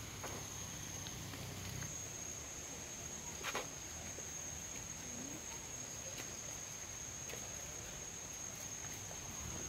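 Forest insects trilling in one steady, unbroken high-pitched tone, with a single short knock about three and a half seconds in.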